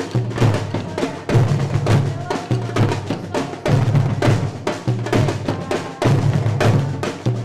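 Afro-Brazilian percussion ensemble of young drummers playing a dense, driving rhythm: deep bass drums booming under rapid, sharper drum strikes.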